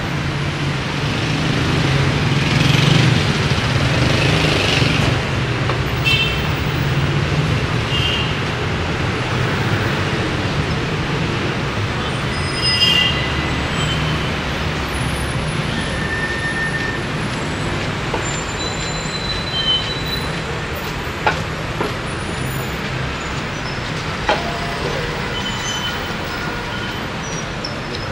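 City street traffic: a steady rumble of buses and cars passing, louder in the first few seconds, with a few short high squeaks and some sharp clicks.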